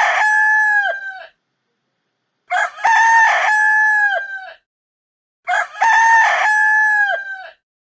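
Rooster crowing cock-a-doodle-doo three times: the first crow is already under way at the start, and two more full crows follow. Each crow lasts about two seconds and ends with a long held note that drops in pitch.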